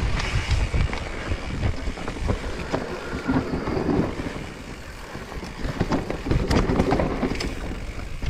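Specialized Stumpjumper Evo mountain bike riding down a loose dirt downhill trail: tyres rolling and crunching over soil and roots, with rattling clicks from the bike and wind buffeting the GoPro's microphone. It eases off for a moment about five seconds in.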